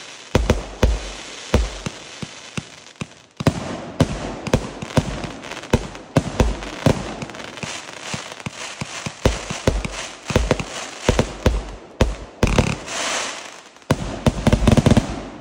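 California King 200s fireworks firing: a quick succession of launches and aerial bursts that builds to a dense, rapid volley with crackle in the last second and a half.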